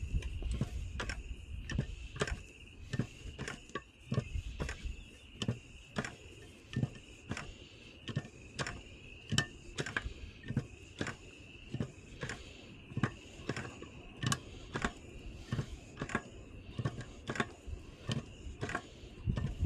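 Hand-operated bucket oil pump being worked in a steady rhythm, clacking about twice a second as it pumps engine oil into a new oil filter to pre-fill it. A steady high-pitched trill runs underneath.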